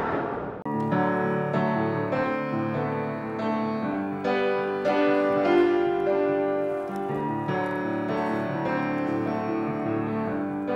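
Grand piano played live: a flowing run of chords and melody notes. A fading whoosh comes just before the piano starts.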